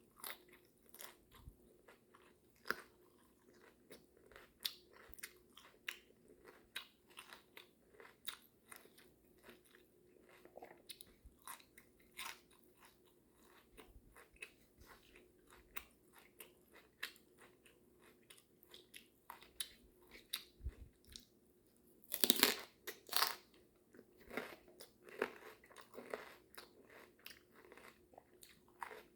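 A person chewing food with the mouth open: a steady run of wet smacking and crunching clicks, several a second, with a louder flurry of bites about 22 seconds in.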